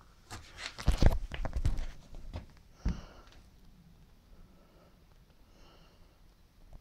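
A quick run of knocks and rustles, loudest about a second in, then a single sharper knock near three seconds, followed by faint room tone.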